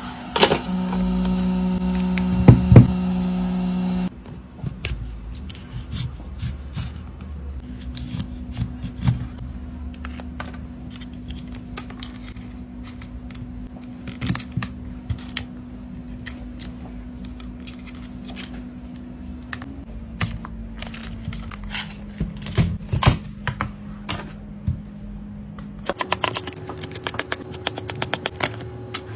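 Repair tools clicking and tapping against an iPad's glass and frame, many small sharp clicks at an irregular pace, over a steady low hum. The hum is louder for the first four seconds and shifts abruptly a few times.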